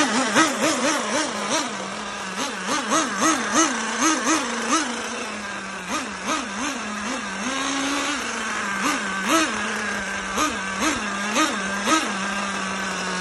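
Small nitro glow engine of a 1/10 on-road Kyosho RC car idling steadily, blipped with many short throttle bursts in quick runs of three to eight, with a slightly longer rev about two-thirds through. The engine is on a test run after being serviced for a seized engine.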